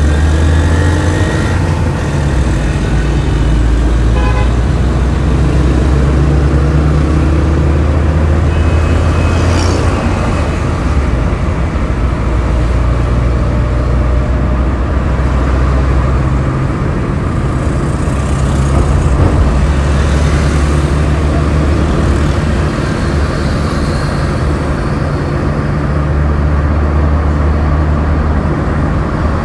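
Road traffic heard from a vehicle on the move: a steady, loud engine and road drone, with other vehicles' traffic noise around it.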